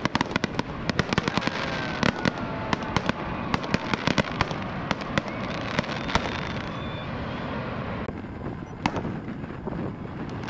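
Fireworks bursting: a dense run of rapid pops and crackles for about eight seconds, thinning to a few scattered bangs near the end.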